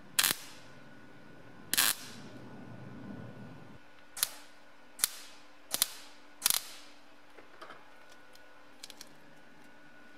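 MIG welder firing six short welding bursts onto the steel blade assembly of a food mincer, the first two the loudest, building up a weld blob to stand in for the original punched metal. A few faint ticks follow near the end.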